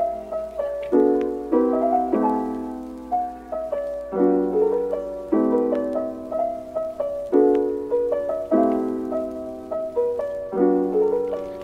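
Background music: a piano track of chords struck every half second to a second, each left to fade.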